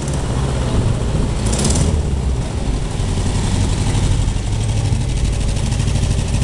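AME Amazonas 1600 motorcycle's air-cooled Volkswagen Beetle 1600 flat-four engine running steadily as the bike is ridden slowly.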